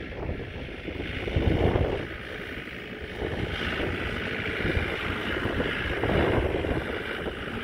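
Gusty wind buffeting the microphone, with a low rumble that swells and fades every second or two.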